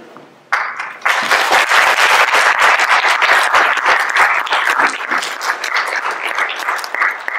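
Audience applauding: a dense patter of many hands clapping that starts about half a second in, fills out a second in, and tapers off near the end.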